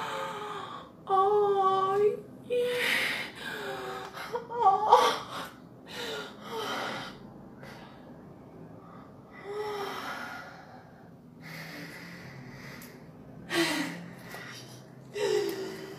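Human voices making wordless clowning sounds: a string of gasps, breathy huffs and short pitched vocal cries with wavering pitch, with brief pauses between them.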